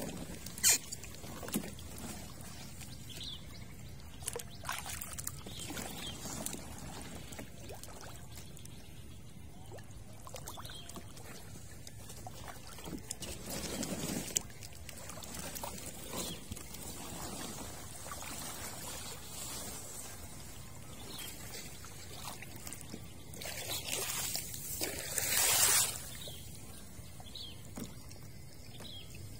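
Water pouring and trickling, with scattered clicks and knocks and a louder rush of pouring about two seconds long near the end.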